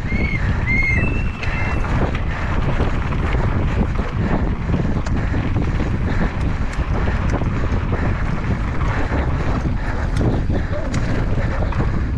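Wind rushing over an action camera's microphone at speed, with the rumble of knobby tyres on a dry dirt singletrack and scattered clicks and rattles from the Commencal Meta mountain bike over bumps. A few short high chirps sound in the first second.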